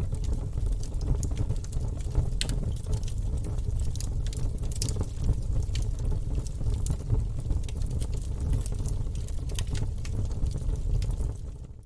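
Wood fire burning in a fireplace: a steady low rumble of the flames with irregular crackles and small pops from the logs. The sound fades out right at the end.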